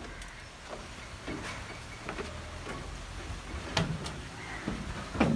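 Scattered short knocks and clicks at irregular intervals over a steady low rumble, with a louder knock a little before the end.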